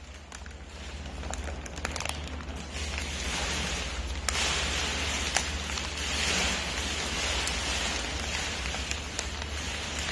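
Crinkling and rustling of a foil snack bag as a raccoon handles it and digs into it, with dense crackling that swells about three seconds in and again around six seconds, over a steady low hum.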